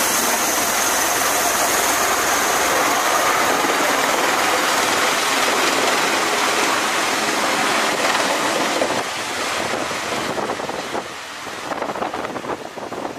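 A CMV-22B Osprey tiltrotor's two turboshaft engines and proprotors at close range: a loud, steady rushing roar with a high whine at first. It fades and turns uneven over the last few seconds as the aircraft lifts away from the deck.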